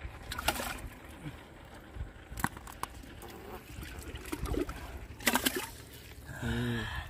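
Water sloshing and splashing as a hand gropes in a water-filled clay pot sunk in wet sand and lifts out fish, with a few sharp splashes along the way. A short voice sound near the end.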